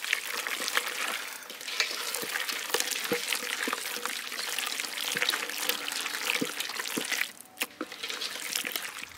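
A hand mixing strips of stingray in a wet egg-and-flour marinade in a stainless steel bowl: steady wet squishing with small clicks against the bowl, pausing briefly about seven seconds in and then going on more quietly.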